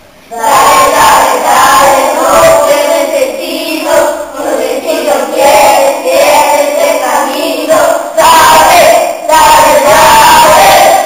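A group of children singing loudly together, some voices close to shouting; the singing cuts off abruptly at the end.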